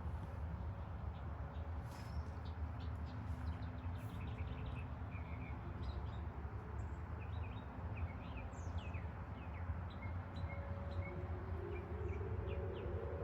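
Outdoor civil warning siren sounding faintly in the distance during its monthly test, a thin steady tone whose pitch rises near the end. Birds chirp over it throughout, above a low rumble of background noise.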